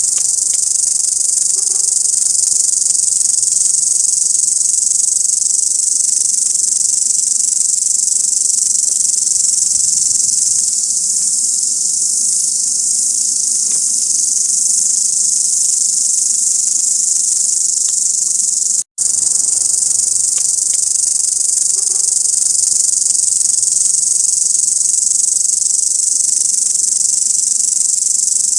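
Grasshoppers stridulating: a continuous, steady, high-pitched insect buzz that breaks off for an instant about two-thirds of the way through, then resumes unchanged.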